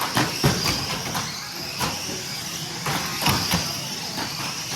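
Radio-controlled car running, with irregular sharp knocks and clatters as it bumps about, over a steady high-pitched whine.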